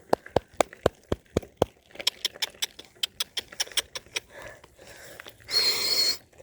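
A person calling a puppy with rapid tongue clicks, about four a second, then a short breathy hiss with a thin whistle near the end.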